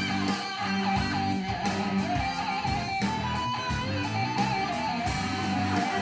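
Metal music played back through Totem Staaf floor-standing speakers driven by a Unison Research S2 valve amplifier. Electric guitars and drums go on steadily, with a wavering lead line above them.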